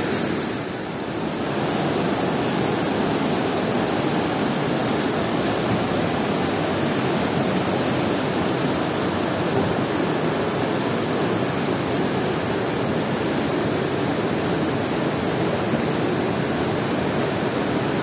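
Jagran Nallah, a swollen mountain river running high with rain and snowmelt, rushing over rocks in a steady, unbroken roar of water.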